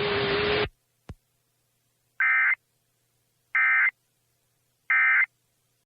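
Emergency Alert System end-of-message code: three identical short bursts of SAME digital data tones, evenly spaced about a second and a half apart, marking the close of the alert. Before them a hiss with a steady low hum cuts off suddenly, followed by a single click.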